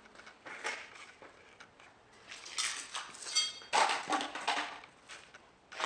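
Footsteps scuffing and crunching over a debris-strewn floor, a few separate rustling, crunching noises, with a brief high squeak a little over three seconds in.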